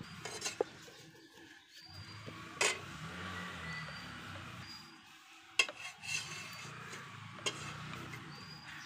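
Wooden rolling pin rolling paratha dough out on a flour-dusted wooden board: a low rumbling rub as it goes back and forth, with a few sharp knocks of the pin against the board.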